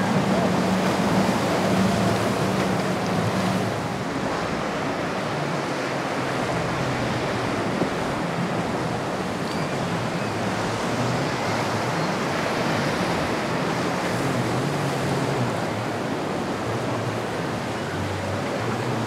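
Ocean surf and wind noise with the low drone of a boat's engine, strongest in the first few seconds, then fainter engine hum coming and going.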